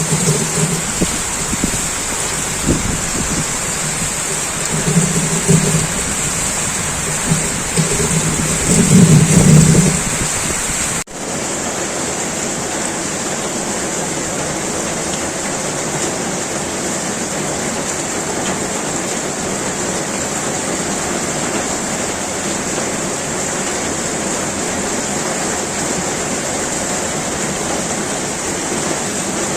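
Heavy rain pouring steadily. In the first third low pitched sounds come and go over the rain; about eleven seconds in the sound cuts abruptly to steady rain alone.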